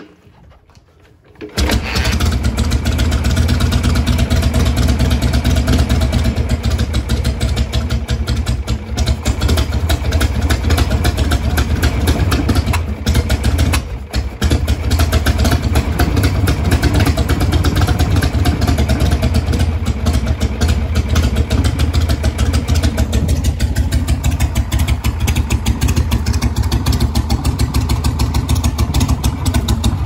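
Rebuilt Harley-Davidson Shovelhead V-twin catching on the kickstart about a second and a half in, then running steadily and loudly through its custom exhaust pipes, with a short dip about fourteen seconds in.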